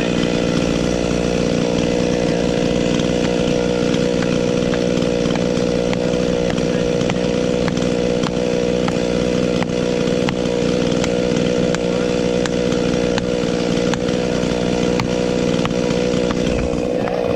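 Chainsaw running steadily at high speed without a break, with faint scattered ticks over the engine sound.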